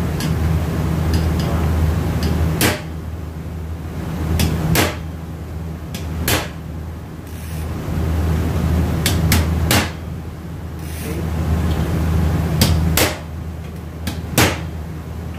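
A hammer tapping a screwdriver against a steel automatic-transmission clutch drum: about a dozen sharp metallic taps, singly and in quick pairs, irregularly spaced, over a steady low hum.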